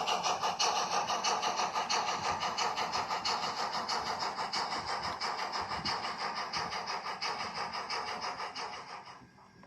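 Sound decoder in a Piko BR 83.10 model steam locomotive playing steam exhaust chuffs through its small speaker, an even beat of about four a second that fades away about nine seconds in.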